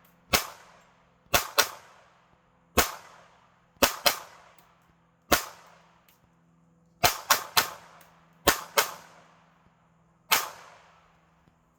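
Tippmann M4-22 semi-automatic .22 LR rifle firing about thirteen shots at an uneven pace, some single and some in quick pairs and a triple, each crack followed by a short echo.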